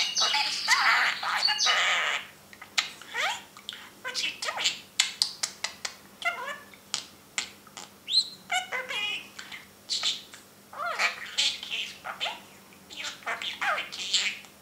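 Budgerigar chattering: a dense run of high warbles for about two seconds, then short spurts of chirps, clicks and quick squeaky glides with brief gaps between them.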